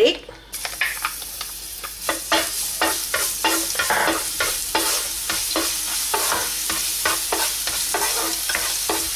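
Minced garlic sizzling in hot oil in a nonstick frying pan, with a utensil scraping and tapping the pan as it is stirred. The sizzle starts about half a second in as the garlic hits the oil.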